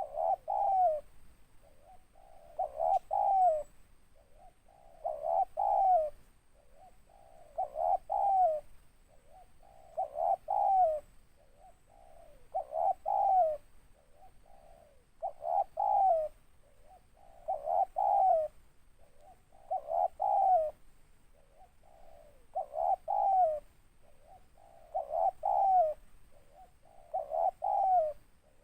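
Spotted dove (tekukur) cooing its song over and over, about every two and a half seconds. Each phrase is a few low coos ending in a falling note.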